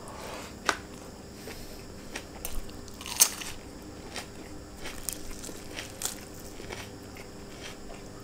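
Close-up mouth sounds of a person eating rice and chicken by hand: chewing with a scattering of short crunchy clicks, the loudest about three seconds in.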